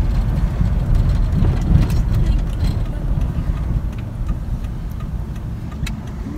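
Car interior noise while driving: a steady low rumble of engine and tyres on the road, easing off a little toward the end.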